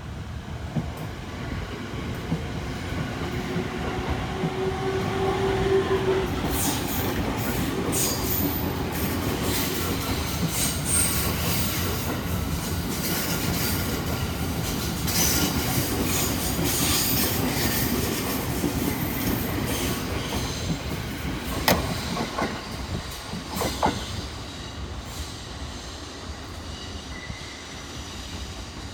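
Electric commuter train running along the platform, wheels squealing on the rails, over a steady rumble. Sharp clacks come twice, around two-thirds of the way through.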